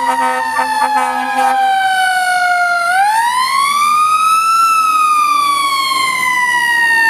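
Fire truck siren wailing: it winds down in pitch for about three seconds, sweeps back up, then slowly falls again. A steady horn tone sounds under it for the first two seconds or so.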